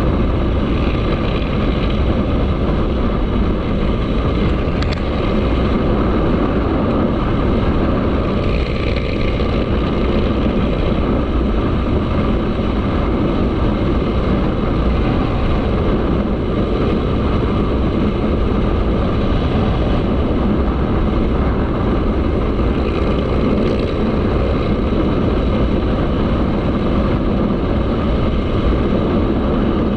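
Motorcycle running steadily under way, its engine noise mixed with wind rushing over the microphone.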